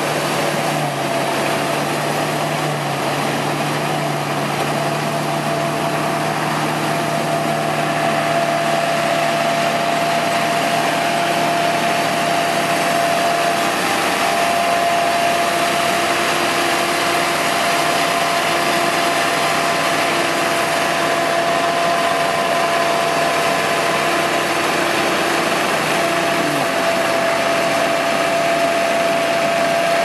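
Dronningborg Dania D950 combine harvester running while harvesting barley: a steady mechanical din of engine and threshing works, with a constant high whine over it.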